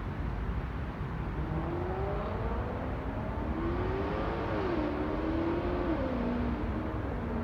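A 2007 Maserati Quattroporte's 4.2-litre V8, breathing through a Larini sports-cat, X-pipe and muffler-delete exhaust, accelerating. The engine note rises for about three seconds, drops sharply about halfway through, then falls again and settles into a lower, steady note near the end.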